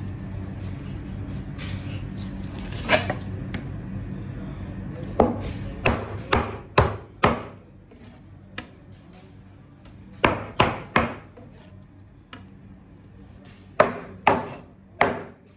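Sharp knocks and thwacks on a cutting board as a large narrow-barred mackerel is cut up with a knife and its pieces are set down, coming singly and in quick runs of three to five.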